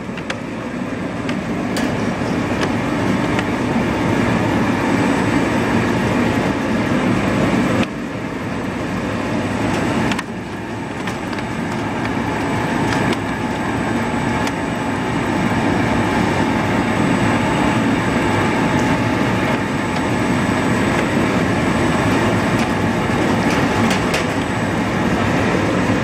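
Potato peeling and washing machine running: its geared electric motor turns the spiral brush roller, tumbling wet potatoes in a steady mechanical rumble. Occasional knocks come as peeled potatoes drop down the stainless-steel discharge chute.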